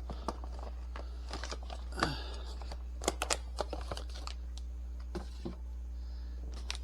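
A cardboard box and plastic-wrapped ice cream bars being handled, with scattered light clicks and brief crinkling over a steady low hum.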